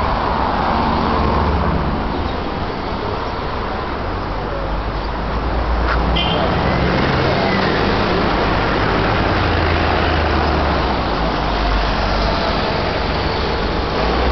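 Steady city street traffic: cars and buses running along the road, with a low engine rumble close by that swells at times. A single short click about six seconds in.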